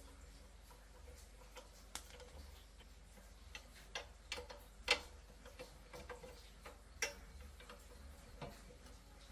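Irregular light clicks and taps of tools and small metal parts being handled while restoring a rusted engine and plow, the sharpest tap about halfway through, over a steady low hum.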